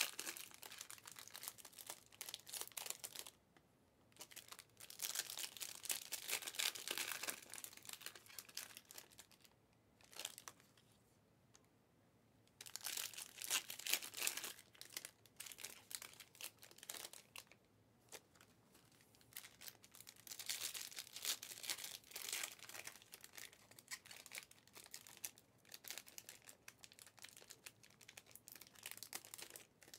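Panini Optic Fast Break trading card packs being torn open and their wrappers crinkled, in irregular bursts of rustling with short pauses between.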